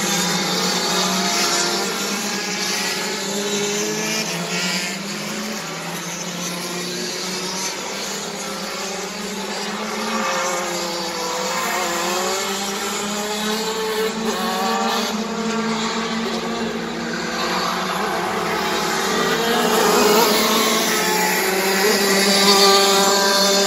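Several racing karts' engines revving up and down as they lap the circuit, their overlapping pitches rising and falling, getting louder near the end.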